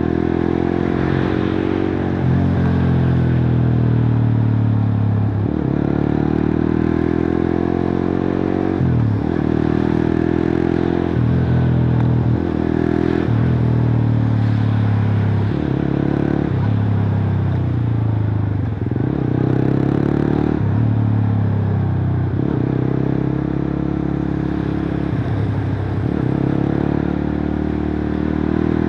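Suzuki GSX-R150's single-cylinder engine heard through a cut-open exhaust while riding. The revs climb and drop sharply again and again as it shifts up through the gears, with stretches where the revs fall away more slowly as the throttle is eased off.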